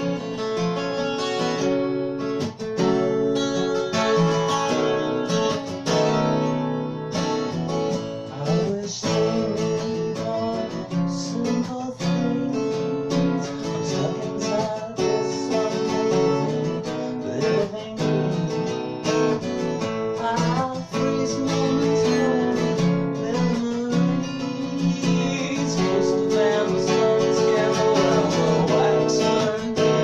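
Twelve-string acoustic guitar strummed steadily, with a man singing along.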